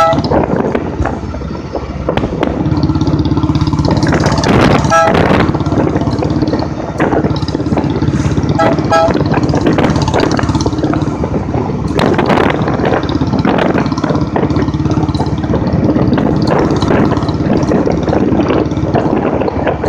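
Royal Enfield Bullet's single-cylinder engine running steadily as the motorcycle rides over a rough dirt track, with rattles from the bumps. Short horn beeps sound about five seconds in and again near nine seconds.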